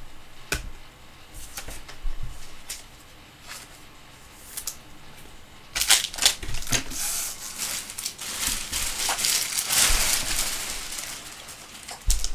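Light taps of cards being handled, then a long crinkling rustle from about six seconds in as a trading-card pack's foil wrapper is torn open and handled.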